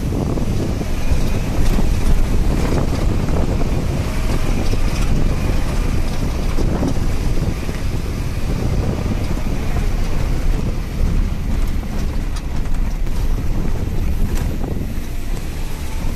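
Wind buffeting the microphone outdoors, a continuous uneven low rumble.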